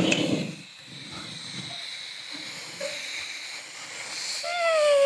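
A man's mouth-made impression of a dental machine working inside a patient's mouth, into a handheld microphone: a sustained hissing whine with a high steady tone. Near the end it turns into a voiced note sliding down in pitch.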